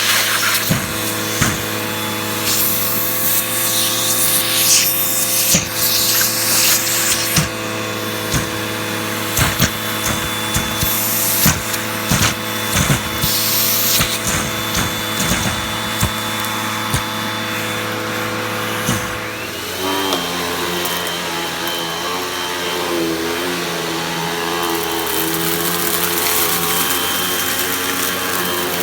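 Hoover vacuum cleaner motor running steadily, with scattered clicks and knocks over the first two-thirds. About two-thirds through, its note changes: a high whine comes in and the pitch wavers from then on.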